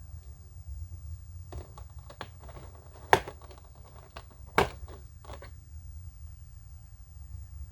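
Scattered clicks and taps from handling an action figure's packaging, with two sharp, loud clicks about three and four and a half seconds in, over a steady low hum.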